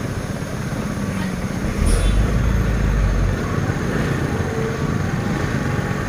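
Diesel truck engines running at low speed as two trucks inch past each other. A louder, deeper rumble swells from about two seconds in and eases off about a second and a half later.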